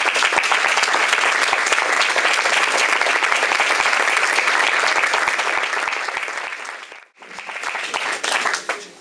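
Audience applauding: a sustained round of clapping. It breaks off abruptly about seven seconds in, then resumes briefly and dies away near the end.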